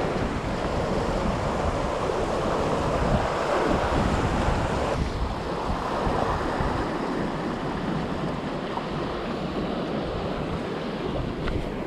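Ocean surf breaking and washing over the rocks, with wind gusting across the microphone.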